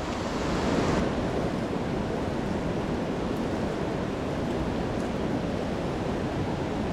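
Mountain creek water rushing steadily over rocks, a constant even noise.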